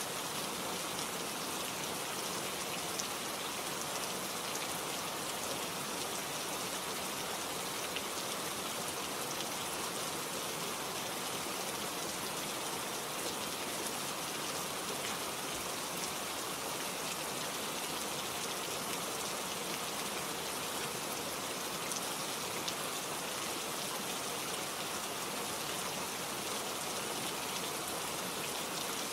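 Steady rain falling, with scattered individual drops ticking through the continuous patter.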